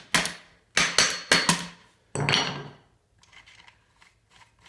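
A hammer striking the stroller's metal front fork about six times in quick succession, tapping it back into the swivel housing; each blow rings briefly. Faint handling sounds follow.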